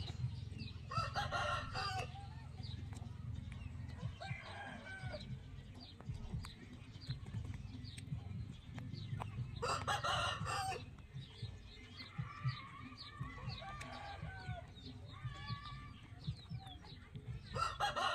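Loud bird calls, each about a second long, three times roughly eight seconds apart, with softer calls and many short chirps between them.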